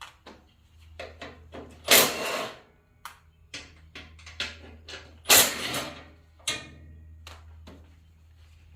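Hand tools working bolts on sheet-metal parts: scattered metallic clicks and knocks, with two louder rattling bursts about two and five seconds in.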